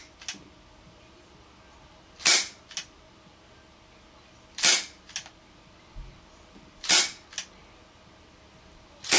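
HFC HG132 gas airsoft revolver fired double action through a chronograph: sharp gas pops about every two and a quarter seconds, three in full and a fourth at the very end, each followed about half a second later by a fainter click.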